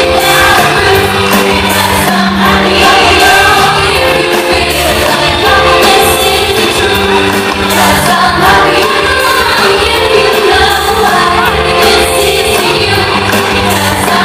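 Children singing an upbeat pop song live over a loud, amplified backing track with a steady beat.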